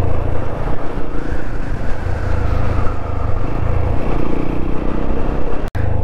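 TVS motorcycle being ridden: a steady engine note buried in heavy, uneven low rumble from wind and road on the microphone. The sound cuts out for an instant near the end.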